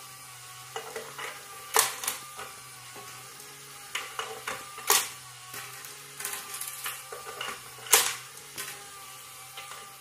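Coins clinking as a parrot picks them up with its beak and drops them into a coin-bank toy: a scatter of sharp metallic clicks, the loudest about two, five and eight seconds in, over a steady hum.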